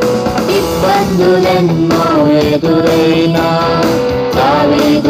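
Telugu Christian song playing for the dance, in a passage between the sung lines, with a melody and a steady beat.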